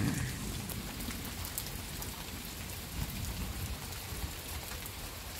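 Steady rain falling on trees and leafy undergrowth, an even hiss with scattered faint ticks of drops.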